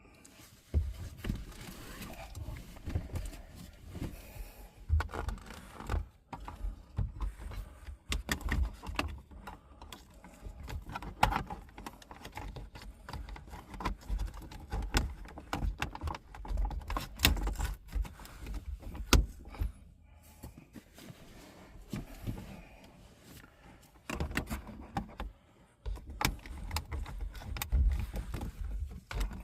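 Hands working plastic interior trim and dash cam wiring near the roof: irregular clicks, knocks and rustling as the pieces are handled and fitted, with a couple of quieter pauses in the middle.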